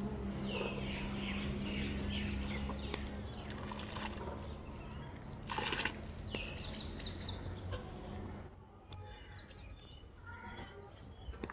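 Birds chirping over a steady low hum that stops about three-quarters of the way through. About halfway through comes a brief splash as liquid is poured from a jar into a large pot of simmering pulao stock.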